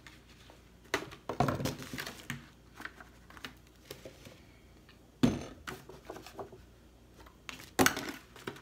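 Kitchen handling sounds around a disposable aluminum foil pan: scattered clicks and crinkles of the foil, a sharp knock about five seconds in as the glass sauce jar is set down, and a utensil clicking and scraping against the foil near the end as the sauce is spread.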